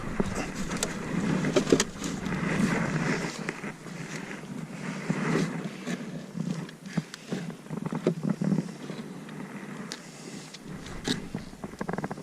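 Wooden beehive boxes and frames being pried apart and handled, with scraping and a scatter of knocks and clicks.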